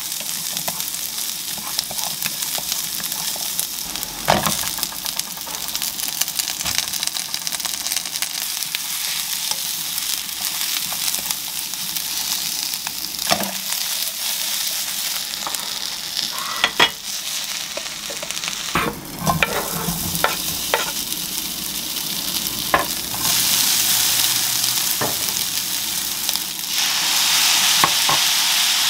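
Sliced garlic and green onion sizzling in olive oil in a nonstick frying pan, stirred with a wooden spatula that knocks against the pan now and then. The sizzle grows louder about two-thirds of the way through and again near the end.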